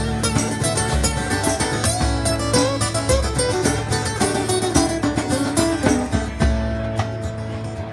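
Two acoustic guitars playing together: steady strumming under picked lead notes, some of them bent. A single note is held near the end.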